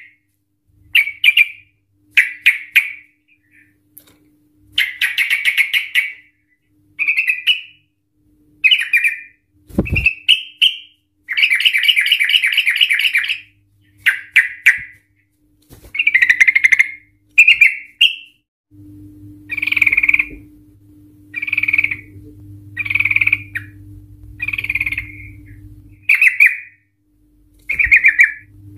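Yellow-vented bulbul singing: short, fast chattering trills of rapidly repeated notes, the 'ropel' song of a bird in full voice, coming about once every one to two seconds with brief pauses between.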